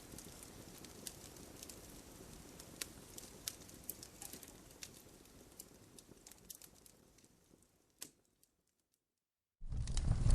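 Fire crackle sound effect: a soft low hiss scattered with sharp pops and snaps, which fades out to silence about eight or nine seconds in. Near the end a much louder track with a deep rumble and more crackles cuts in suddenly.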